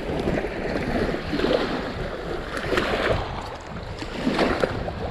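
Wind buffeting the microphone over small waves washing against a rocky shore, swelling and easing, with a few louder surges.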